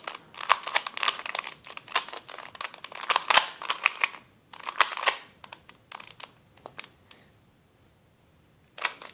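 2x2 Rubik's cube being turned fast by hand, its plastic layers clicking and clacking in quick runs during the last moves of a solve. The turning thins out to a few scattered clicks, stops about seven seconds in, and there is a brief flurry of clicks near the end.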